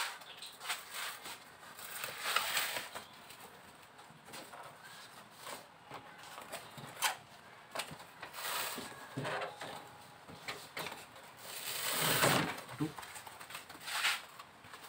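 Foil-faced heat-insulation sheet crinkling and rustling in irregular bursts as it is handled and pressed flat by hand against the underside of a car bonnet, the loudest burst about twelve seconds in.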